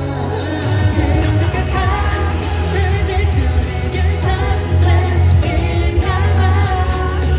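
K-pop song played live through a concert sound system, with sung vocals over a heavy, steady bass.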